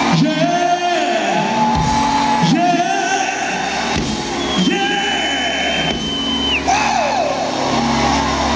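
Live R&B band performance: a male lead vocalist sings into a handheld microphone over drums, bass, keys and guitar through a concert PA. A long high note is held through the middle and drops at its end.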